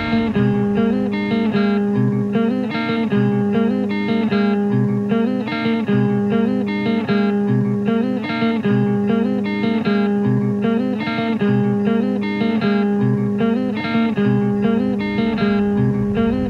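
Instrumental music: guitars picking a short repeating figure over held low notes, the same pattern coming round about every second and a half.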